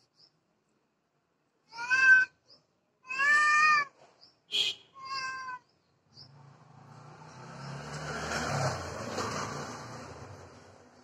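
Cat meowing three times, the middle call the longest, with a short sharp high squeak between the second and third. Then a rumble swells and fades away, as of a vehicle passing.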